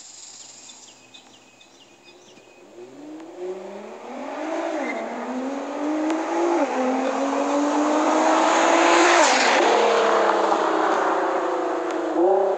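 Nissan R35 GT-R's twin-turbo V6, fitted with an HKS Legamax catback and a non-resonated mid-pipe, accelerating hard toward the microphone. The pitch climbs and drops at two gear changes, the car passes loudly with a sharp drop in pitch about nine seconds in, then it fades as it pulls away.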